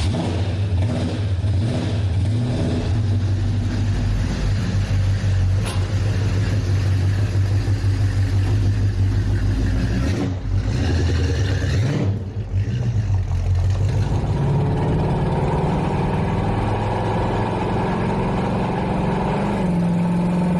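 The V8 engine of a 1967 Pontiac GTO running steadily. About two-thirds of the way in it speeds up, its note rising and holding higher.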